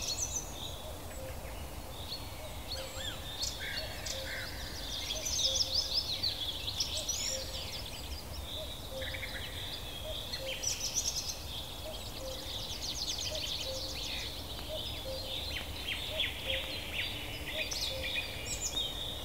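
Several small birds singing and chirping, with short whistles and quick trills overlapping throughout, over a steady low background noise.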